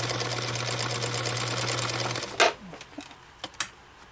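Early-1970s Bernina Record 830 sewing machine running steadily, its motor humming under a fast even rhythm of stitches as it sews a dense zigzag. It stops about two seconds in, followed by one sharp click and a few softer clicks.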